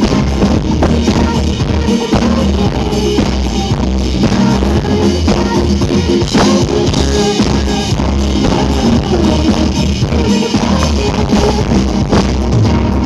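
Loud live pop-rock band playing through the stage PA: drum kit with bass drum and snare driving a steady beat under bass and keyboards.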